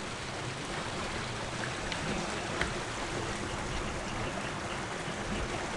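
Shallow rocky stream running: a steady rush of flowing water.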